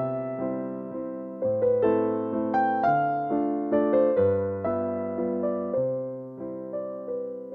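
Background piano music: struck notes over a low bass, with the chords changing about every second and a half.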